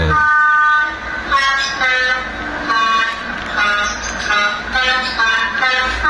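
Telolet basuri musical bus horn tune played back by the MP3 sound module of a 1:43 scale miniature bus: one long held note, then a quick melody of short horn notes.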